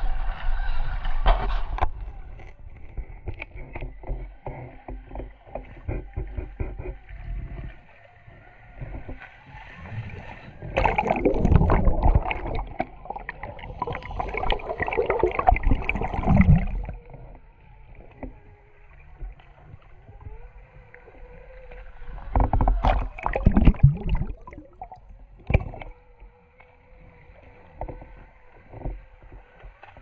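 Traxxas TRX4 RC crawler wading through a shallow creek: water splashing and churning around its tyres in loud bursts, in between quieter stretches where the whine of its electric motor and gears comes through.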